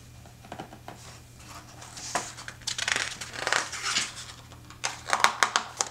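A page of a large hardcover picture book being turned by hand: the paper rustles and crinkles, with a few sharp crackles near the end.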